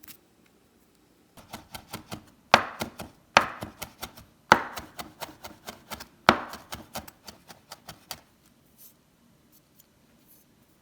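Knife chopping on a cutting board: quick light taps from about one and a half seconds in until about eight seconds, with four louder strokes among them.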